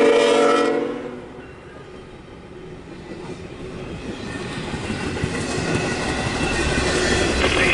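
A CSX freight locomotive's horn chord ends about a second in. Then the train's intermodal and autorack cars roll past with a rumble and wheel clatter on the rails that grows steadily louder.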